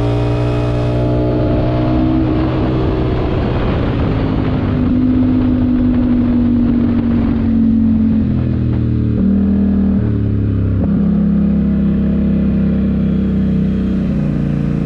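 Polaris Sportsman XP 1000 ATV's parallel-twin engine revving hard under full-throttle acceleration in low range. The CVT holds the engine at high, fairly steady revs, a little over 7,000 rpm. In the second half the pitch drops and climbs back several times as the throttle is eased and reapplied.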